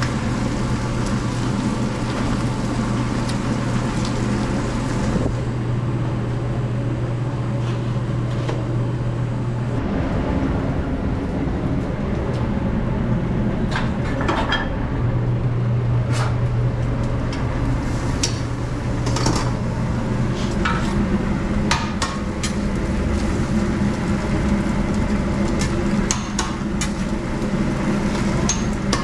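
Food sizzling on a restaurant griddle over a steady low hum, with scattered sharp clinks and scrapes of metal utensils and pans, more of them in the second half.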